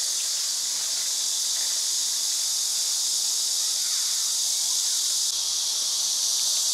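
Steady, high-pitched drone of a summer cicada chorus.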